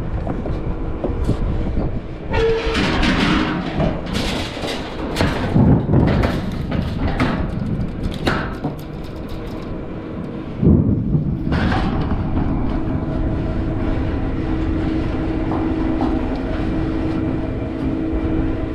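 Storm wind gusting hard across the microphone, a continuous low rumbling with sharp gusts, loudest about six and eleven seconds in. A steady mechanical hum becomes clearer under it in the second half.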